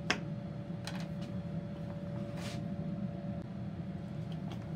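Steady low hum of a workshop, with a fainter higher hum that stops about three and a half seconds in. A few light clicks and taps come from tools and the board being handled on the workbench, the sharpest just after the start.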